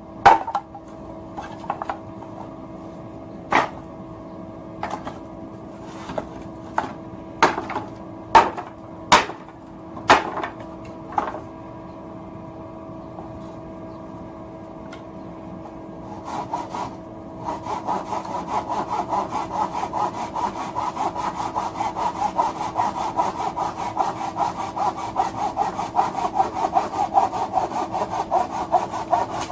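Sharp wooden knocks, one every second or so, then from about halfway a handsaw cutting wood in quick, regular strokes. A steady low hum runs underneath.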